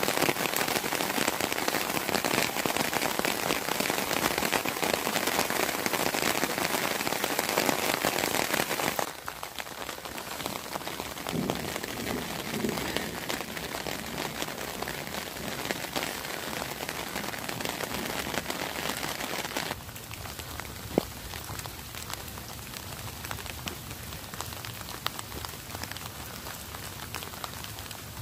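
Steady rain falling on the surface of a flooded lake and the vegetation around it, a dense even hiss that drops suddenly in level about nine seconds in and again about twenty seconds in.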